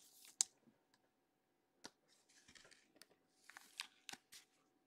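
Faint plastic rustling and a few light, sharp clicks: a sleeved trading card being handled and fitted into a clear rigid plastic card holder.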